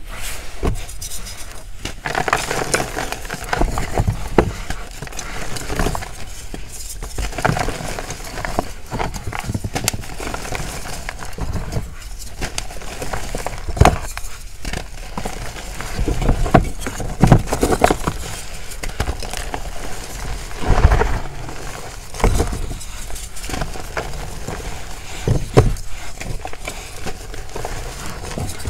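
Hands crushing and crumbling blocks of purple gym chalk into powder: a run of irregular dry crunches and soft powdery crumbling, with a few louder snaps.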